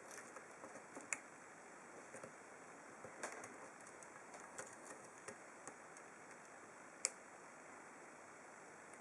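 Faint, sparse metallic clicks and ticks of a lock pick and tension tool working the pins in the keyway of an ASSA Ruko 2 padlock core, with a sharper click about a second in and the loudest about seven seconds in.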